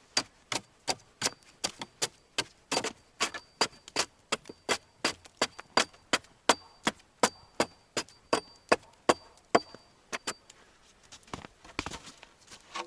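Meltwater dripping off a thawing roof: a fast, regular run of sharp drip ticks, about three a second, each with a faint high ring. The ticks thin out near the end.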